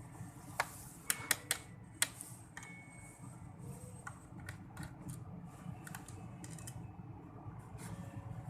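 Small clicks and ticks of a screwdriver working the screws out of the plastic bottom cover of an Asus ROG Strix G531GT laptop. A few sharper clicks come in the first two seconds, with lighter ticks after, over a low steady hum.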